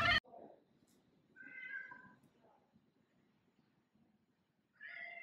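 Domestic cat meowing twice from inside a plastic pet carrier, one meow about a second and a half in and another near the end. It is an anxious cat waiting to be seen at the vet.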